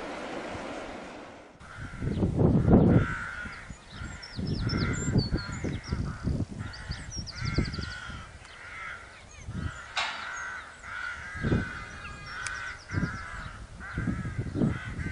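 A steady rush of wind gives way, about a second and a half in, to birds calling over and over, with fainter higher chirps of small birds and irregular gusts of wind buffeting the microphone.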